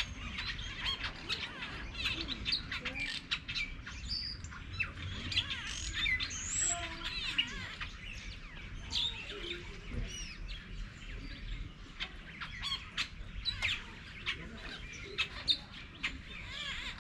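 A chorus of wild birds chirping and calling, many short, quick notes and whistles overlapping, over a low steady rumble.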